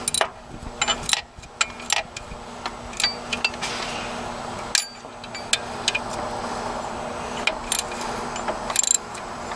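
Irregular metallic clicks and clinks of a hand tool on the alternator's lower mounting bolt as it is threaded in and tightened.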